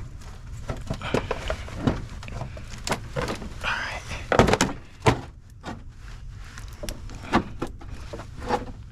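Irregular knocks and clanks of hand tools and metal parts being worked during an alternator removal, a scattered run of sharp knocks with the loudest cluster about halfway through.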